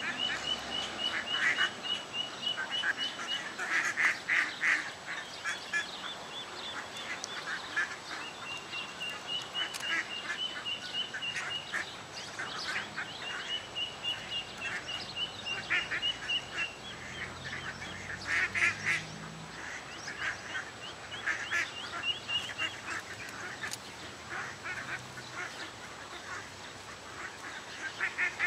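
A feeding flock of mallards calling. The hens give repeated bursts of quacking, loudest a few seconds in and again past the middle, over long runs of rapid high peeping from the ducklings.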